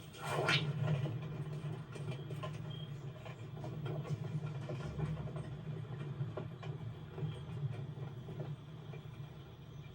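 Film sound effects: a short whooshing sweep about half a second in, then a steady low rumble with scattered faint clicks and ticks.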